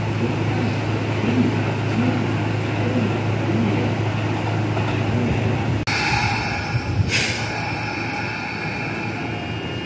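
Kintetsu electric train running along the track away from the station platform, a steady rumble with a low hum. After a sudden change, a standing Kintetsu train hums at the platform, with a sharp click about seven seconds in.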